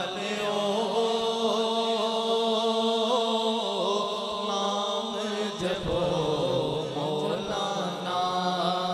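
A man chanting a devotional zikr into a microphone, in long held notes that bend slowly in pitch, with a short break a little past halfway before the next phrase.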